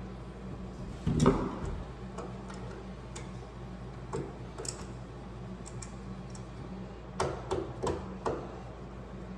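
Knocks and taps from fitting a kitchen-island cabinet piece into place: one heavy thump about a second in, a few light clicks, then a quick run of four sharp knocks near the end, over a steady low hum.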